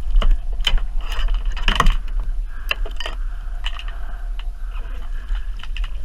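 Irregular clicks and knocks of a gaff, paddle and lure rattling against a plastic kayak as a freshly landed Spanish mackerel is handled, with a cluster of knocks about two seconds in, over a low steady rumble of wind and water.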